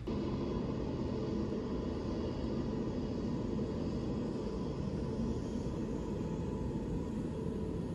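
Airbus A350-900's Rolls-Royce Trent XWB turbofans at taxi power as the jet rolls past close by: a steady rumble with a high engine whine over it.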